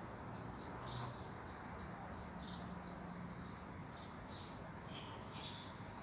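A songbird calling with a quick run of short, high chirps, about three a second, over steady outdoor background noise.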